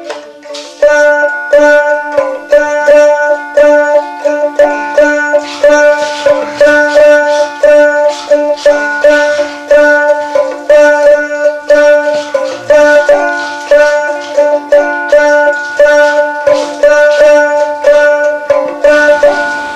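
Instrumental music: a plucked string instrument picking a quick repeating melody over a steady held drone.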